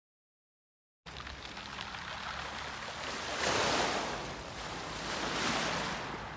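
Small waves breaking and washing up over a pebble beach, a steady surf hiss that begins abruptly about a second in and swells twice as waves come in.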